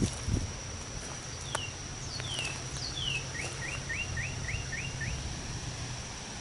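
A songbird singing: a few quick downward-sliding whistles, then a run of six short rising notes at about three a second.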